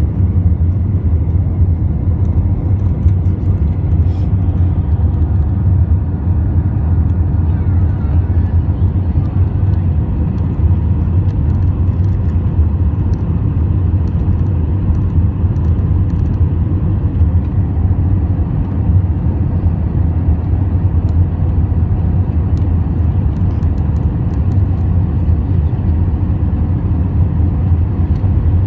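Airbus A320 airliner cabin noise: a loud, steady low rumble of engine and airflow, heard from inside the cabin, unchanging throughout.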